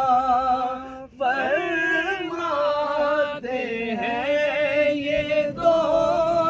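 A man chanting unaccompanied in a devotional style, holding long wavering notes with strong vibrato. He breaks off briefly three times, about a second in, past three seconds and near the end.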